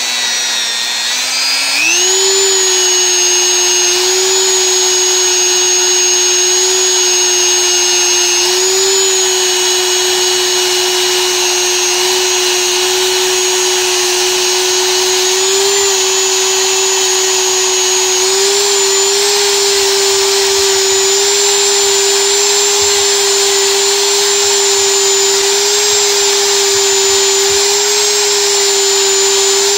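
Corded Dremel rotary tool running at high speed with a non-woven abrasive buffing wheel, buffing light rust off steel needle-nose pliers. Its steady motor whine steps up in pitch about two seconds in as the speed rises, then holds.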